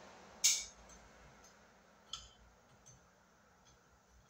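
Sharp clicks from hand tools and metal hardware being handled: a loud one about half a second in, a fainter one about two seconds in, then a few light ticks.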